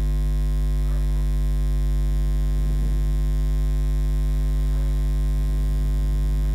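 Steady electrical mains hum: a loud, unchanging low drone with a ladder of evenly spaced higher tones above it.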